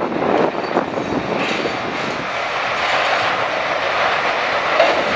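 Sawmill machinery running: a steady, loud mechanical clatter and rumble with irregular knocks and clanks.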